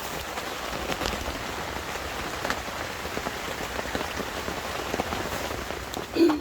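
Steady rain falling, with a haze of rain noise and many separate drops ticking close by.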